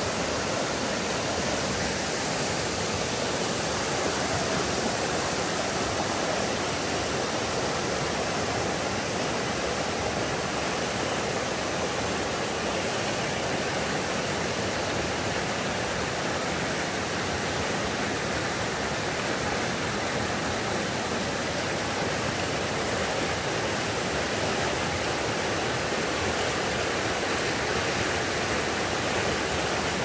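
Rapids of a shallow, rocky river rushing in a steady, unbroken roar of water.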